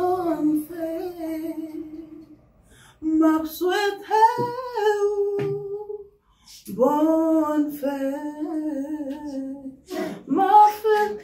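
A woman singing unaccompanied, holding long notes with a wavering vibrato in phrases separated by short breaths about two and a half, six and ten seconds in.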